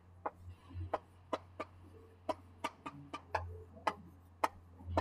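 Chalk writing on a chalkboard: about ten short, irregular taps and clicks as the chalk strikes and strokes the board.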